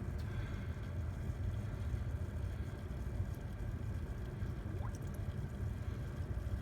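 Newly installed sump pump running steadily, a low hum, pumping water out of a pit that was full to the top.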